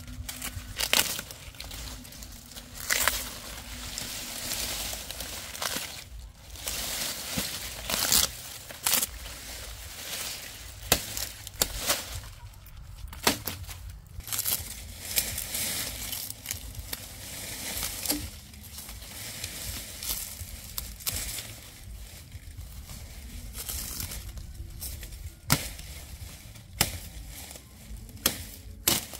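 Machete chopping and trimming sugarcane stalks: irregular sharp chops, with the crackle and rustle of dry cane leaves being crushed and pulled aside.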